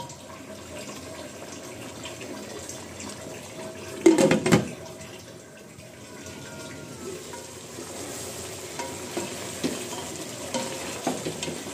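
Chicken curry sizzling in a pan, with a spatula stirring and scraping through the chicken and potatoes. A short clatter about four seconds in is the loudest sound.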